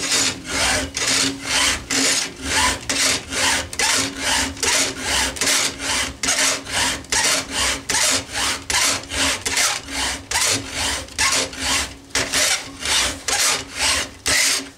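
Stihl file guide's files rasping across a dull chainsaw chain cutter in even strokes, about three a second, to resharpen the cutter.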